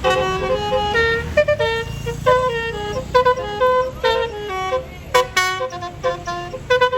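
Bus's Basuri telolet horn, a multi-trumpet musical air horn mounted on the roof, playing a quick tune of short notes that jump in pitch several times a second. A low rumble runs underneath.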